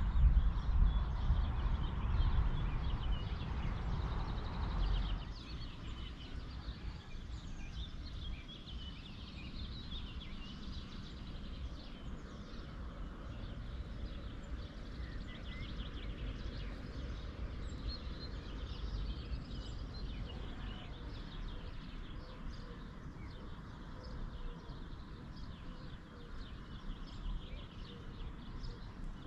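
Birds chirping and calling over a steady outdoor background. For the first five seconds a loud low rumble lies under them, then it stops abruptly.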